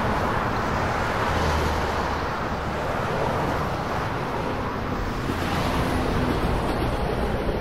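Steady vehicle noise: an even, low rumble with a hiss over it, without any distinct events.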